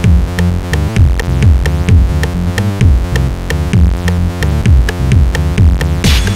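Electronic background music: synthesizer over a drum-machine beat of about two kicks a second, with a cymbal crash near the end.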